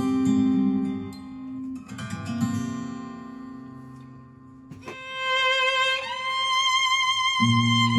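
Instrumental music played through a 42 tube amplifier. Plucked guitar notes fade away, then about five seconds in a violin enters on a long held note with vibrato, and a low bass part joins near the end.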